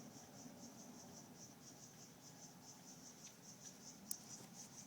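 A cricket chirping steadily, a faint high-pitched chirp about five times a second, with a single sharp click about four seconds in.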